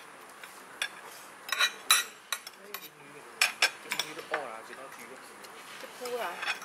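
Cutlery clinking on plates and dishes at a dinner table: a scatter of sharp clinks, loudest around two seconds and three and a half seconds in, with faint voices in the background.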